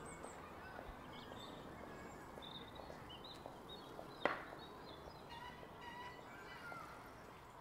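Faint outdoor background noise with scattered short, high bird chirps throughout, and a single sharp click about four seconds in.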